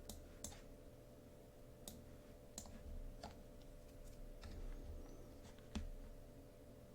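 Faint, scattered clicks from working a computer, about ten over several seconds, over a faint steady hum.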